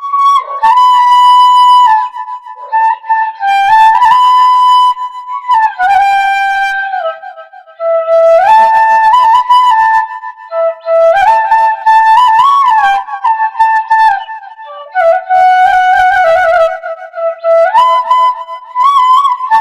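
Solo bansuri (Indian bamboo flute) playing a melodic tune in short phrases, holding notes and moving between them with slides and quick ornaments, with brief pauses between phrases and no accompaniment.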